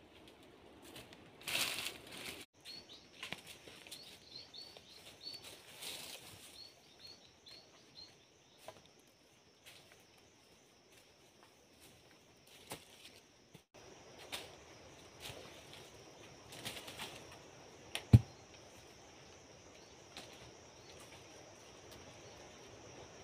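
Footsteps and rustling in dry leaf litter, with a steady high-pitched insect drone and a run of short bird chirps. A single sharp knock stands out about three-quarters of the way through.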